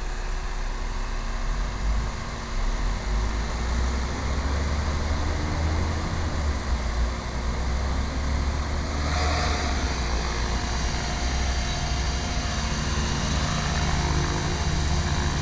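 Gaui radio-controlled helicopter in flight, its rotor and drive running steadily; the sound grows a little fuller about nine seconds in.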